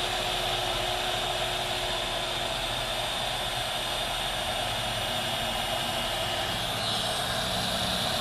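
Ryobi cordless heat gun running, its fan blowing steadily with a faint high whine, aimed at the winch's red power wire and its crimped terminal.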